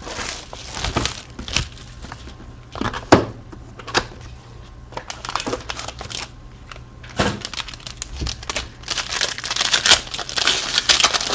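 Sealed box of football trading cards being opened by hand: plastic wrapper crinkling and tearing, with irregular clicks and taps of cardboard and cards being handled. The crinkling is densest near the end.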